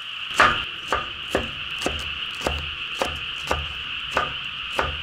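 A small square-bladed kitchen knife chopping green chili peppers on a wooden cutting board, about nine strokes at roughly two a second. Insects keep up a steady high trill behind.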